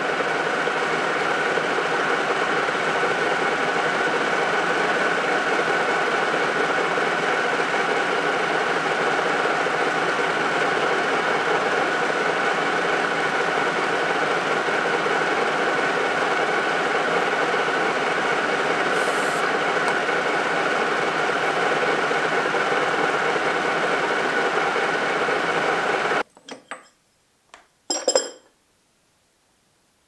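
Metal lathe running steadily under load while a large twist drill in the tailstock bores into the blade adapter, its gearing giving a steady whine. About 26 seconds in it stops suddenly, followed by a few light metal clinks as the part is handled against the chuck.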